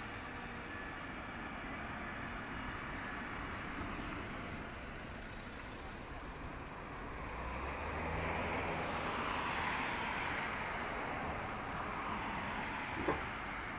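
Steady outdoor traffic noise. A passing vehicle swells and fades over a few seconds around the middle, and there is one short click near the end.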